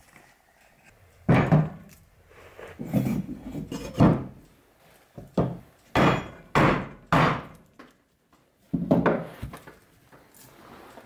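Mallet blows on wood: about eight heavy knocks at uneven intervals, three of them in quick succession in the middle. They come from driving a gouge into a birch burl and setting an iron holdfast over it.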